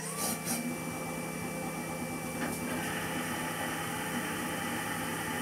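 CNC milling machine running, with a steady machine hum under a spindle whine that rises in pitch at the start and then holds. About halfway through, a louder, hissier noise sets in over the hum.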